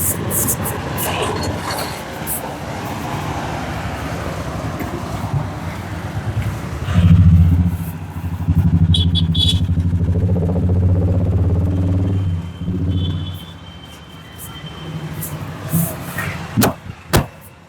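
Street traffic: a motor vehicle's engine running close by, loudest from about seven to thirteen seconds in, with a few sharp clicks near the end.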